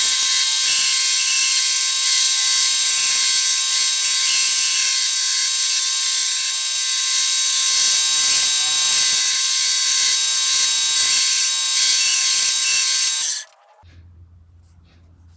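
Belt sander running a fine surface-conditioning belt against a pair of steel pliers: a loud, steady high hiss with a few steady whining tones, which stops suddenly near the end.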